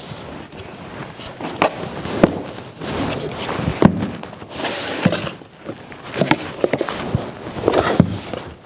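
Irregular knocks, taps and clatter from handling a cardboard box and its contents, with a short rustle of packaging about halfway through.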